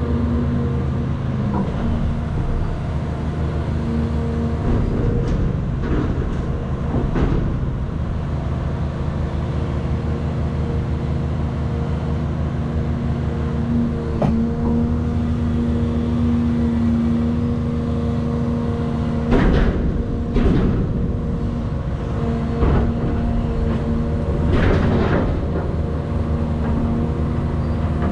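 Cat 336 hydraulic excavator's diesel engine running steadily under load, with a series of crashes and cracks of a house being torn down, a cluster about five to seven seconds in and several more in the last third.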